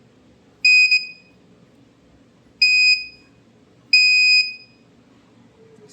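Passive buzzer on an Arduino UNO alarm giving three short, high-pitched steady beeps at uneven gaps. These are the alarm tripping each time a hand comes within range of the ultrasonic sensor.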